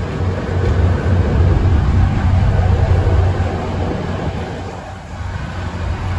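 Volvo B7TL Gemini double-decker bus's seven-litre six-cylinder diesel engine working hard under load, a loud low thrash heard from inside the bus. It builds over the first second, holds, dips briefly about five seconds in, then builds again.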